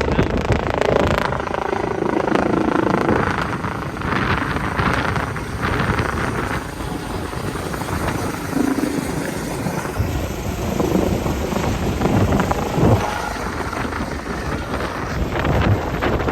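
Medical helicopter's rotor and engine heard at a distance, mixed with strong wind buffeting the microphone.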